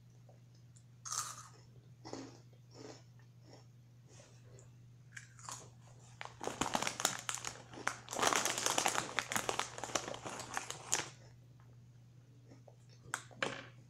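Close-up chewing of crunchy Cheetos: a few separate crunches at first, then about halfway through a dense, louder run of rapid crunching lasting about four seconds, fading to a couple of last bites near the end. A steady low hum runs underneath.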